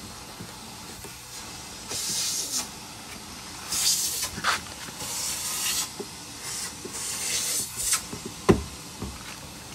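Scraping and rubbing of a plastic tail-light housing against the car body in several short bursts as it is worked loose by hand, with one sharp click about eight and a half seconds in.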